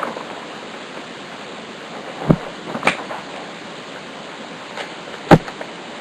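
Trading cards being handled and flipped by hand, giving three sharp clicks, the loudest about five seconds in, over a steady background hiss.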